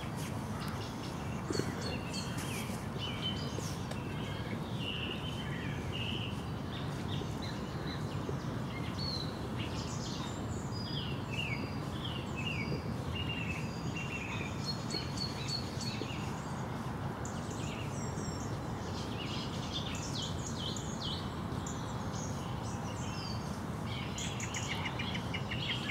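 Songbirds singing in the evening: many short chirps and whistled phrases, some gliding in pitch, over a steady rushing background noise.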